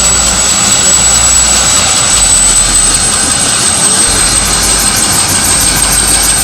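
Bell 212 helicopter's turboshaft engine running, with a loud steady noise and a high, steady turbine whine. About halfway through, a fast, faint pulsing comes in on top.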